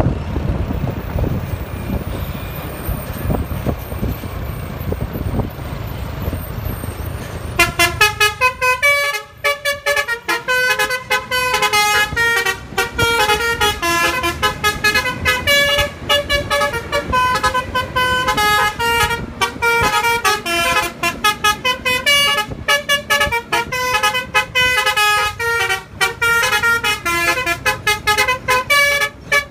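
A low rumble, then about seven and a half seconds in a Basuri multi-tone telolet bus horn starts and plays a fast melody of short, stepping notes that runs on to the end.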